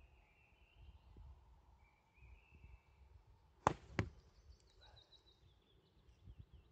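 A sling shot being loosed: two sharp cracks about a third of a second apart, the first the louder.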